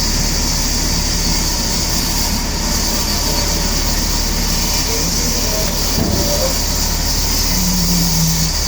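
Sawmill machinery running steadily: a loud, even mechanical noise with a strong high hiss and a low hum underneath.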